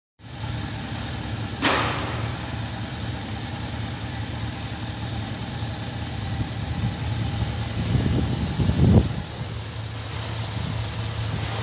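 Holden Commodore 6.0-litre V8 idling steadily, with one short sharp tap about one and a half seconds in and a brief rise in the low rumble just before nine seconds.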